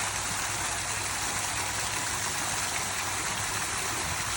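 Steady rushing noise of water, with a low rumble underneath.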